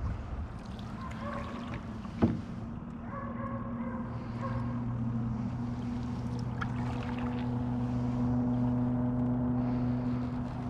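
A distant engine's steady low hum, growing louder through the second half. A single sharp knock comes about two seconds in.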